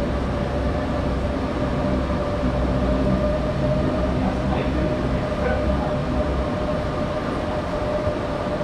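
Berlin U-Bahn G1/1E train running, heard from inside the car: a steady rumble of the running gear with a steady whine over it, the low rumble swelling in the middle.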